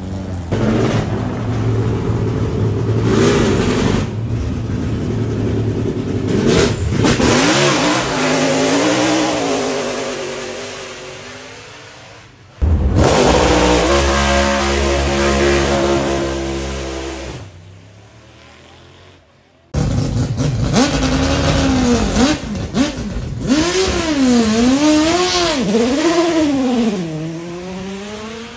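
Racing car engines revving hard and accelerating away from the start line, one car after another. The pitch climbs and drops with each gear change, and each pass fades as the car pulls away, with abrupt breaks where one car gives way to the next.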